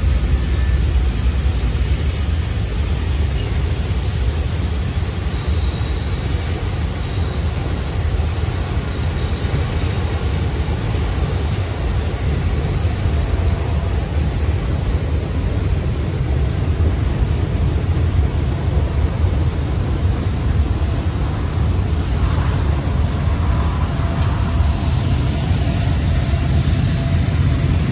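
A freight train of tank cars rolling past, its wheels on the rails making a steady heavy rumble.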